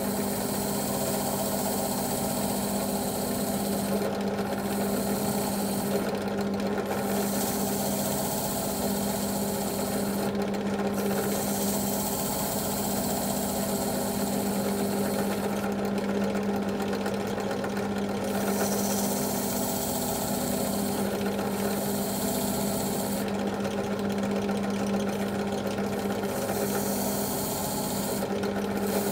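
Drill press motor running at a steady hum, spinning a wire wheel against which a small brass ring is held. This gives a high scratching hiss that breaks off briefly several times when the ring is lifted off the wheel.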